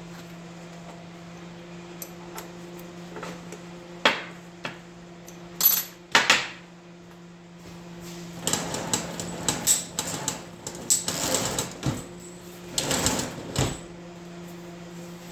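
Scattered clicks and knocks, then rough rustling and rattling stretches, over a steady low hum.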